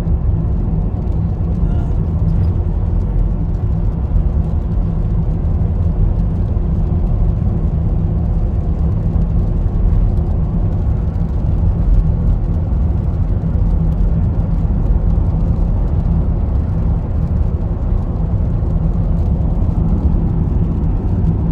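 Steady road and engine noise inside a moving car's cabin: a constant low drone with a steady hum, unchanging throughout.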